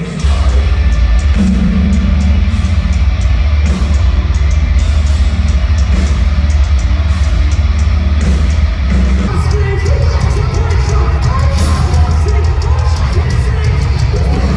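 A heavy metal band playing live at full volume, with a pounding low end from drums and bass, distorted guitars and vocals, heard from within the crowd. There is a brief dip right at the start where the recording cuts in.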